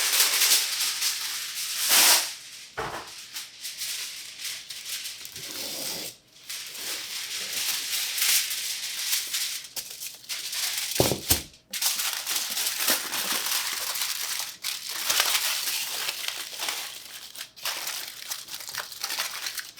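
Sheet of aluminum foil being crinkled and pressed around a springform pan, a continuous crackling rustle with sharp crinkles throughout.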